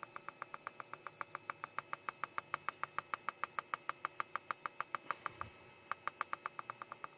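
Rapid, even clicking of a computer mouse scroll wheel, about six or seven clicks a second, with a short pause about five and a half seconds in.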